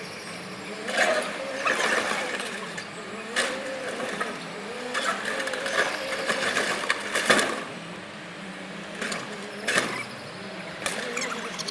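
Forklift engine running as it lifts the wrecked sailing yacht, with a wavering whine. Several short, sharp knocks and cracks come at uneven intervals as the broken hull shifts on the forks.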